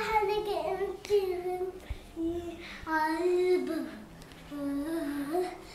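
A young girl singing an Arabic song unaccompanied, holding and bending notes, with a brief pause about four seconds in.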